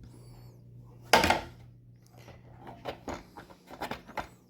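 Plastic Milwaukee Packout drawer box being opened and handled: one louder clunk about a second in, then several lighter clicks and knocks.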